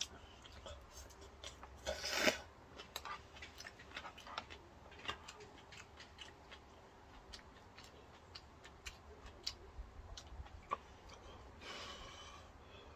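Close-up eating sounds of ramen and green-onion kimchi: scattered small clicks and chewing, with a louder noisy burst about two seconds in and a longer noisy stretch near the end.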